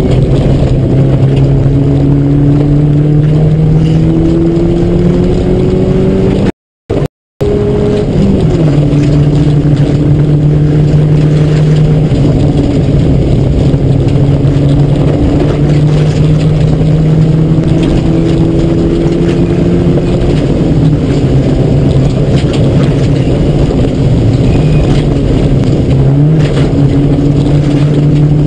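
Rally car engine heard from inside the cabin, pulling hard with its note climbing slowly through each gear and dropping back at the shifts, over steady road noise. The sound cuts out completely twice in quick succession about six and a half seconds in.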